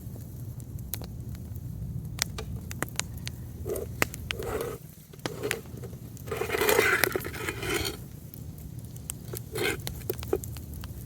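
Campfire crackling with scattered sharp pops, broken by short scuffs and a louder scraping rustle lasting about a second and a half, about six seconds in.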